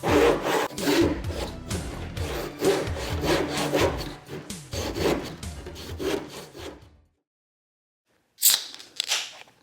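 Saw cutting through a wooden 2x4 brace in quick back-and-forth strokes, over background music. It stops about seven seconds in, and two short, sharp scraping strokes follow near the end.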